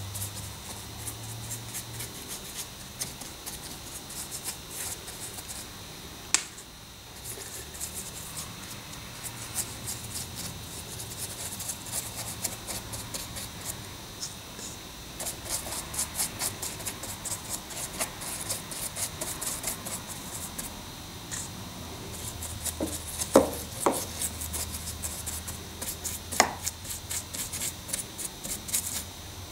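Stiff paintbrush dabbing and scrubbing watery grey acrylic paint into the crevices of model rock castings: a run of quick, scratchy bristle strokes that gets busier about halfway, with a few sharper taps scattered through it.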